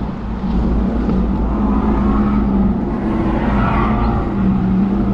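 Electric go-karts running around the track, with a steady hum and heavy wind rumble on the microphone.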